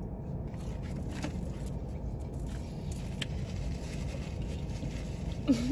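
Steady low rumble of a car heard from inside the cabin while it sits parked, with a few faint soft clicks.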